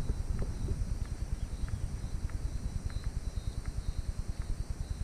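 Wind buffeting an action camera's microphone in a low, rapidly pulsing rumble, with faint light ticks about every half second.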